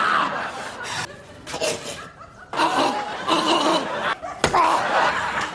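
Laughter and a man's short wordless vocal noises in several brief bursts, starting and stopping abruptly.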